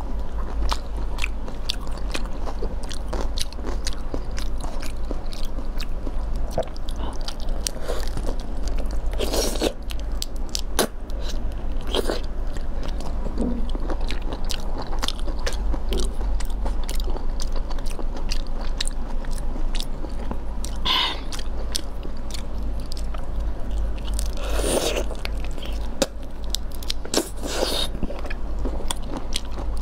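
Close-miked mouth sounds of eating raw shrimp in chili sauce: chewing and biting, with many small sharp clicks and a few longer, louder bites spread through, over a steady low hum.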